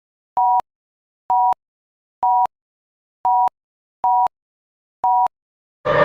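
Electronic beeping: six short, identical two-tone beeps, evenly spaced about a second apart, with silence between. A much louder, steady sound starts just before the end.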